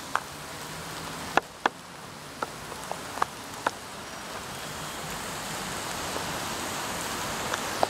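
Steady splashing hiss of a large outdoor fountain, with a handful of sharp clinks of a metal utensil against cookware, two close together about a second and a half in.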